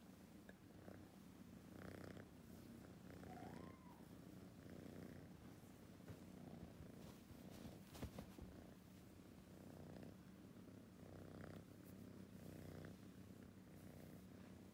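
Kitten purring faintly and steadily while it is stroked, the purr swelling and easing every second or so. A single soft knock about eight seconds in.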